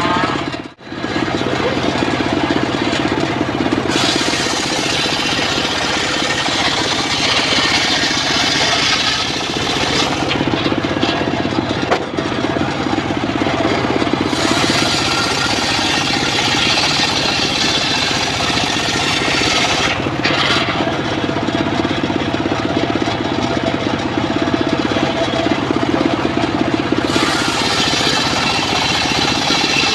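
Engine-driven mobile circular sawmill running steadily, its blade ripping through timber in three passes of several seconds each. Each pass adds a louder, higher hiss over the engine's drone, which eases when the blade leaves the wood.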